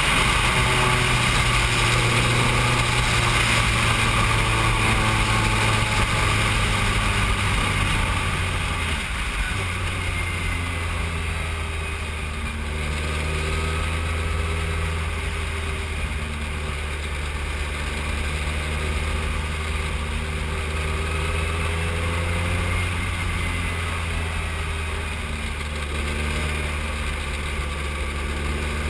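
Formula 3 single-seater's engine running, heard onboard over rushing noise. The engine note drops about nine seconds in, as the car slows, and then holds a lower, steadier pitch.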